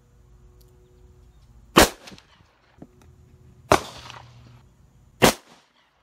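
Three revolver shots, the second about two seconds after the first and the third about a second and a half later, each followed by a short echo.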